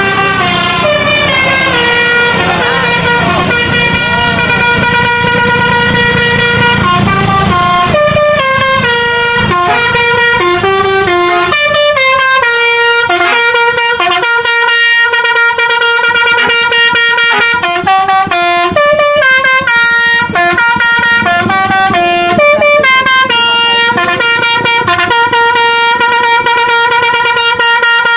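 Indonesian bus 'telolet basuri' multi-tone air horn playing a tune, its notes stepping up and down in quick succession. A low rumble runs under it for about the first seven seconds.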